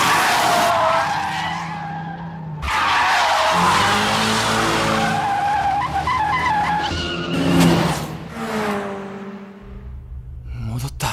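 Toyota AE86's tyres screeching in a long slide with the engine running hard underneath, the screech breaking briefly about two and a half seconds in and peaking near eight seconds before easing into a lower engine drone.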